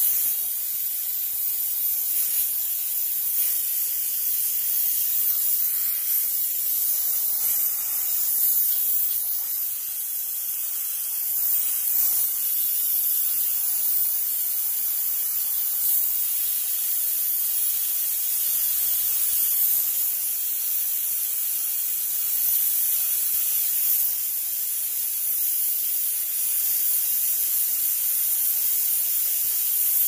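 A steam cleaner jetting steam in a continuous high hiss that swells and eases slightly but never stops.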